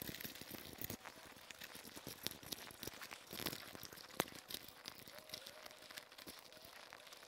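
Faint rustling and small clicks of a bundle of wires and a rubber grommet being handled and pushed into place in a motorcycle headlight bucket, with one sharper click about four seconds in.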